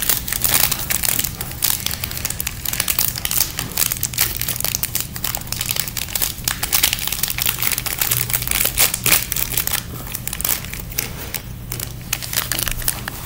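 Crinkly plastic wrapper of a bag of Mini Robin Eggs candy crinkling continuously as it is handled in the hands.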